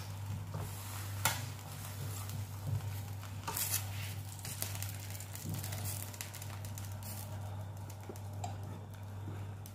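Chicken pieces being turned on the wire rack of an electric tabletop grill: a few sharp clicks of metal on the rack, about a second in and again around three and a half seconds, over a steady low hum.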